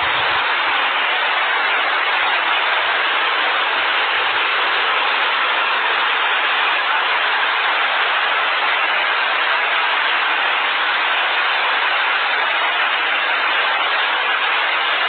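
Rushing flash-flood water: a loud, steady rush of noise without a break.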